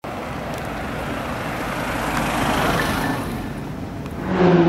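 Street traffic: a vehicle passing, its road noise swelling and then easing. Near the end a much louder car engine comes in, its pitched note climbing as it accelerates.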